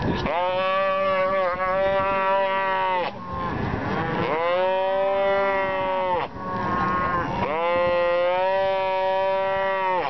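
A calf bawling in three long calls with short breaks between them, each dropping in pitch at the start and then held level. The bawls come from a calf held down while a hot branding iron burns its hide, a pain and distress cry.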